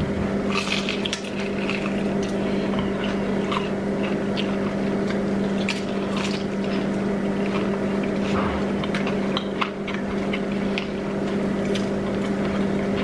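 Close-up eating sounds of two people biting into and chewing fried chicken, with many short, sharp clicks and smacks, over a constant low hum.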